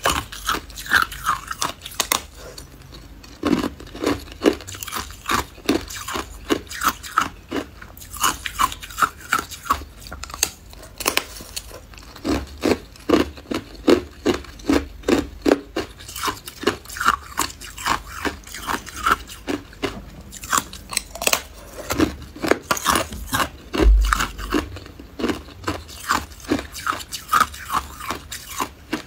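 Hard clear ice being bitten and chewed close to the microphone: runs of sharp crunches, several a second, in bouts with short pauses between bites. One low thump late on.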